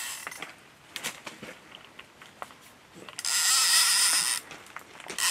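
Fishing reel's ratchet buzzing in two bursts of about a second each, as a fish pulls line off the spool on the take. A few faint clicks come before.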